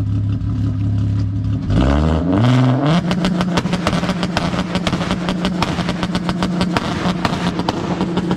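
Straight-piped, cat-deleted 24-valve VR6 engine of a tuned MK4 VW GTI running steadily, then revving up about two seconds in and held at a fixed high speed on the two-step launch limiter. The exhaust crackles and pops rapidly while held there, the backfiring that makes it shoot flames.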